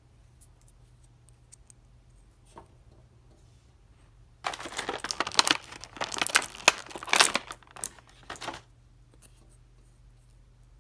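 Clear plastic blister tray crinkling and crackling as hands work a small accessory piece out of it, for about four seconds in the middle. A few faint handling clicks come before it.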